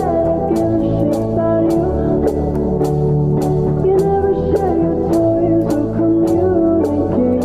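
Background music: sustained notes over a steady beat, with guitar among the instruments.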